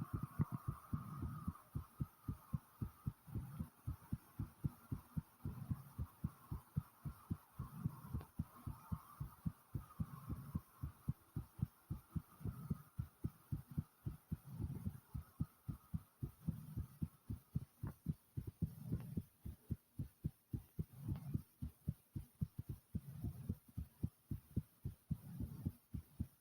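A person's heartbeat pounding hard and fast in a rapid, even run of low thumps, raised after the exertion of walking back from the store.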